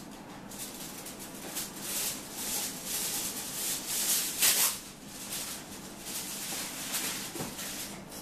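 Aluminium foil crinkling as it is crumpled and stuffed by hand, in irregular crackly bursts, loudest about four and a half seconds in.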